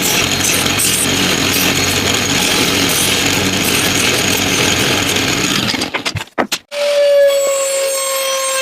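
A power tool cutting or working wood runs steadily, then stutters and cuts off about six seconds in. A steady pitched tone with overtones follows to the end.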